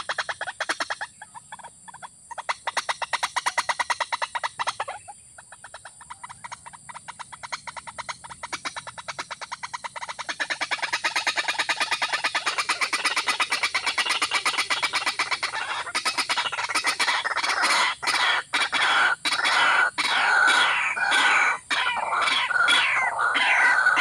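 Waterhen calls: a fast, even pulsing call that comes and goes at first and then grows louder and steady about ten seconds in. In the later part it is joined by short falling notes repeated a few times a second.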